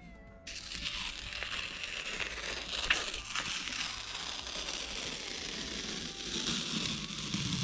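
Masking tape being peeled off a freshly painted cabinet edge: a continuous crackling, tearing rip that starts suddenly about half a second in, with one sharper snap about three seconds in.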